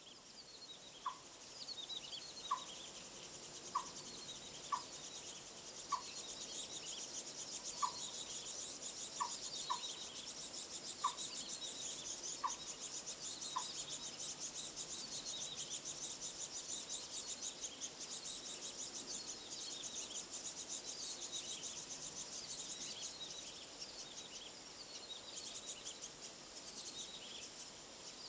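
Birds calling with insects: a short clear single note repeated about ten times, roughly once a second, through the first half, over a continuous bed of rapid high-pitched chirping, thin falling whistles and a steady high insect whine.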